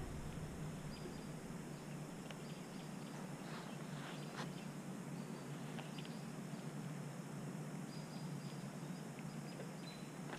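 Faint pond-side ambience: a low even hiss with a few soft scattered clicks and brief high chirps.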